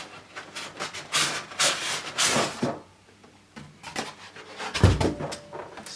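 Cardboard shipping box being opened and its styrofoam packing handled: rubbing and scraping for the first few seconds, quieter handling after, then a dull thump about five seconds in.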